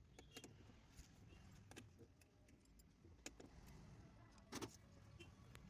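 Near silence with faint scattered clicks and light rattles, the loudest a quick double click about four and a half seconds in: plastic wiring connectors and wires being handled.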